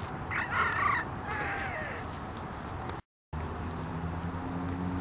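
Bantam rooster, wearing a velcro no-crow collar, crowing once for about two seconds, the call ending in a falling note. A short dropout follows, then a low steady hum.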